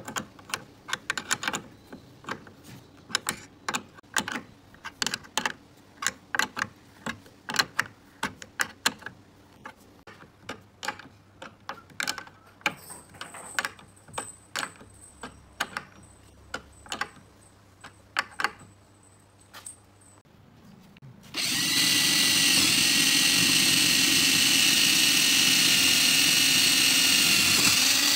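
Quick metal clicks, several a second, of a wrench turning nuts onto stainless eye bolts. About two-thirds of the way through, an electric drill starts with a loud, steady whine, boring through a pine rail and running without a break for about seven seconds. The drill is the loudest sound.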